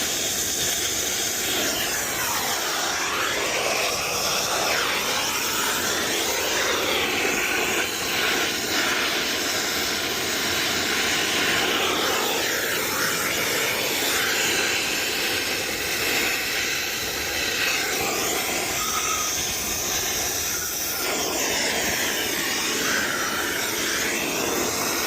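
Brazing torch flame running with a steady loud hiss while joints on the copper refrigerant lines are heated, its tone shifting slowly as the flame moves and wind gusts across it.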